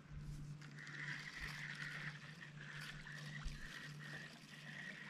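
Quiet lake ambience from a kayak: faint water trickling and lapping at the hull, with a faint wavering high-pitched buzz starting about a second in and holding steady.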